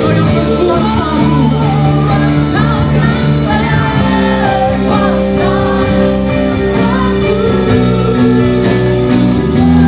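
Live worship band with several singers on microphones performing an Indonesian-language praise song: sung melody over sustained chords.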